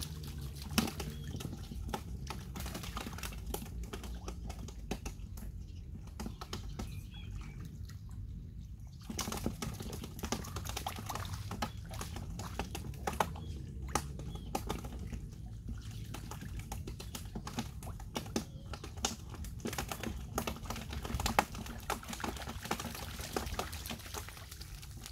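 Irregular splashes and sloshing of a person wading and groping by hand in shallow muddy water, with scattered sharp splats and drips.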